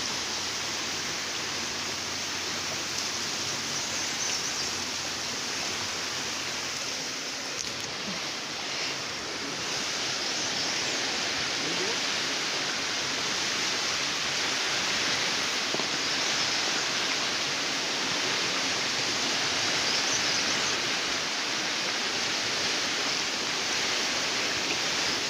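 Fast, turbulent river rushing steadily, a continuous even noise of moving water.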